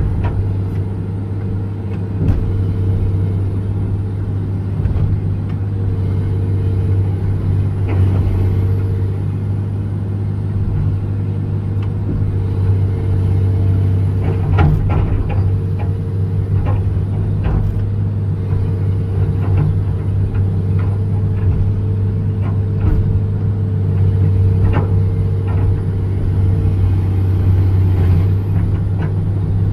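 John Deere 200LC (Hitachi EX200) excavator's diesel engine running steadily as the arm and bucket swing and move, with a few sharp knocks from the bucket and linkage scattered through.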